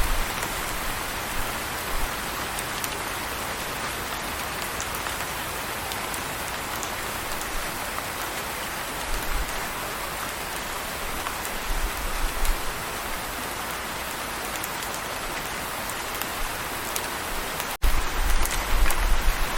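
Steady rain falling on a surface, an even hiss with scattered drop ticks. A few low rumbles come in, and near the end the sound drops out for an instant before a heavier low rumble.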